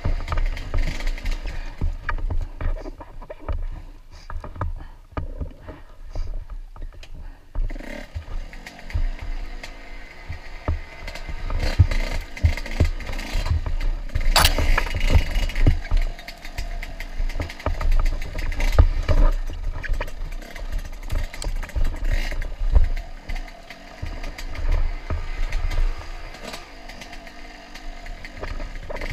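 Dirt bike engine revving up and down as the rider works the throttle, with frequent knocks and rattles from bumps. About fourteen seconds in there is a loud sharp scrape, as branches brush the helmet camera.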